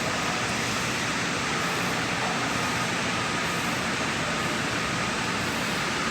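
Steady machine noise: an even, unbroken hiss and rumble with a faint high whine running through it.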